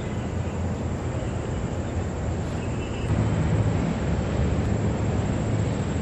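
Steady low rumble of city background noise, like distant traffic, growing a little louder about three seconds in.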